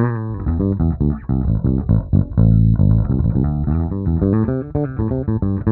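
Squier Deluxe Dimension Bass V five-string electric bass played fingerstyle with its active EQ's bass knob turned all the way up: a quick run of plucked notes with one longer held note about halfway through.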